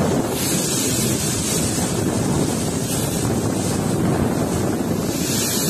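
Cyclone wind blowing hard and steadily, buffeting the microphone.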